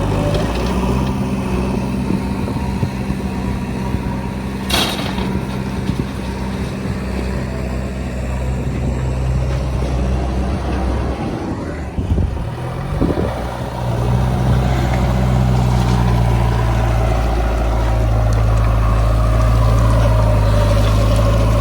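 Heavy diesel engine running steadily, getting louder about 14 seconds in, with a short sharp noise about 5 seconds in.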